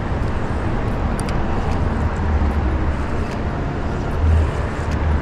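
Steady low rumble of a bass boat moving slowly on the water, with motor and wind noise and no distinct engine note; the rumble swells now and then.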